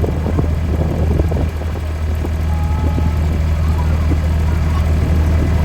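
Steady low drone of an aircraft engine. Near the end a louder rushing aircraft noise starts to build.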